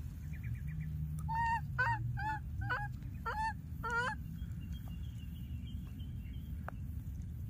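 Baby macaque giving a run of six short, high-pitched calls, about two a second, each bending up and down in pitch: the repeated contact calls of an infant separated from its playmate.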